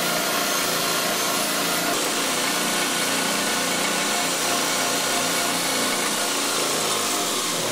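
Bench grinder running with a wire wheel, a hand-forged steel bottle opener pressed against the spinning wire brush, which scratches steadily over the metal as it polishes it.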